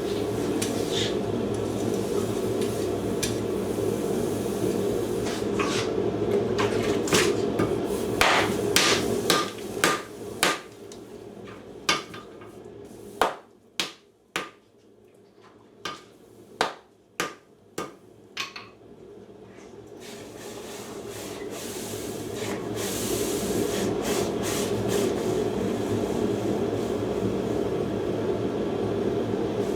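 Hand hammer striking hot homemade steel on an anvil in irregular blows, with about eight separate, ringing strikes in the middle. A steady rushing noise from the forge runs underneath, dies away in the middle and comes back near the end.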